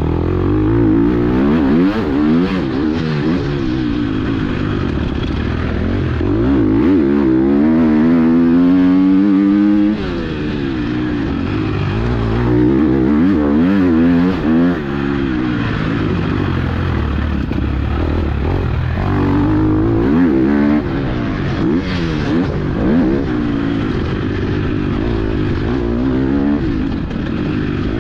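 A KTM motocross bike's engine revving hard while riding, its pitch climbing through each gear and falling back at shifts and off-throttle. The longest climb ends with a sudden drop about ten seconds in, and there are further dips later on.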